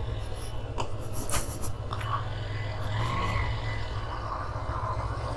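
Motorcycle engine idling with a steady low throb, a few faint clicks over it.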